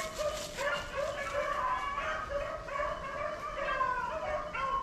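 A pack of beagles baying on a rabbit's trail, several dogs giving tongue at once in overlapping, unbroken cries: the sound of hounds in full chase.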